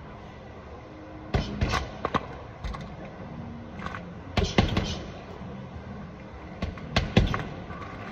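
Boxing gloves hitting a hanging heavy bag in short combinations of two to four sharp, thudding punches, with pauses between. The first punches land about a second and a half in.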